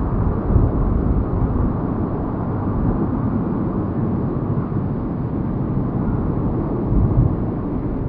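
Steady, deep rumble of a Boeing 737-800's CFM56-7B jet engines as the airliner comes in to land.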